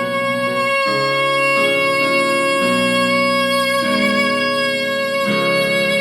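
A woman's singing voice holds one long, steady belted note on the final word 'rain', over accompaniment that changes chords several times beneath it. The note wavers slightly near the end and finishes just after this.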